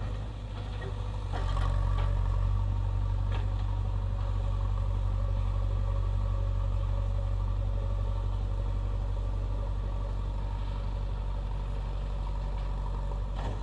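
Diesel engine of a 76 hp JCB backhoe loader running steadily, picking up in loudness about a second and a half in and then holding. A few faint knocks in the first few seconds.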